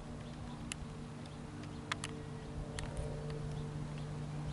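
Steady low drone of a distant Boeing 737-900ER airliner's jet engines, with a few sharp ticks scattered through it.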